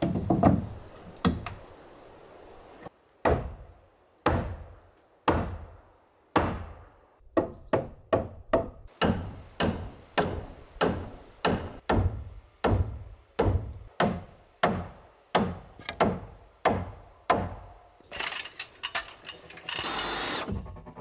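Repeated blows on wood, spaced about a second apart at first and then quickening to about two a second, each dying away quickly. Near the end a rougher, noisier sound takes over.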